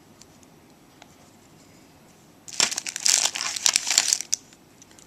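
Packaging crinkling as it is handled, in one dense crackling burst of about two seconds near the middle.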